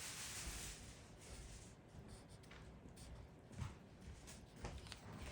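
Faint scratching of a drawing tool on paper as lines are drawn, in a few short strokes.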